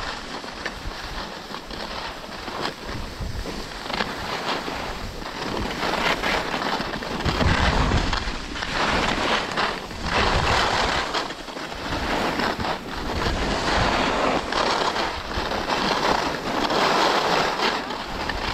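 Skis hissing and scraping over groomed snow, the sound swelling and fading every couple of seconds, with wind rumbling on the microphone.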